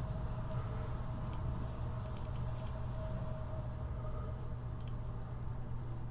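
Computer keyboard keys tapped a few times, with a quick run of taps about two seconds in, over a steady low hum.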